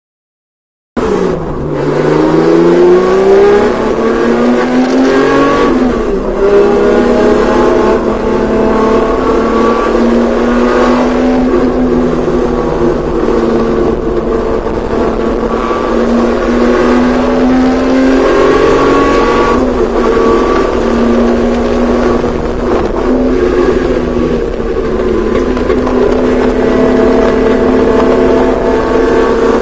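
Porsche 911SC's air-cooled 3.0-litre flat-six running hard on a race track, cutting in suddenly about a second in. Its pitch climbs, drops briefly at a gearshift, then holds high with small rises and falls as the throttle changes through the corners.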